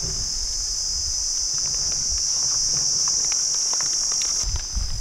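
Insects chirping in a steady, high-pitched drone that eases off near the end, with faint crinkling and patter as plastic bags of flour are emptied onto a metal tray.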